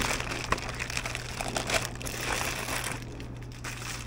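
Clear plastic packaging bag rustling as a silicone griddle mat is pulled out of it, dying down about three seconds in.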